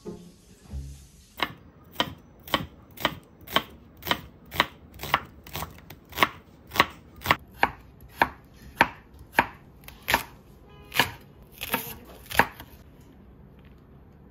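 Chef's knife slicing carrot on a wooden cutting board: sharp, even knocks about two a second, starting about a second and a half in and stopping about twelve seconds in.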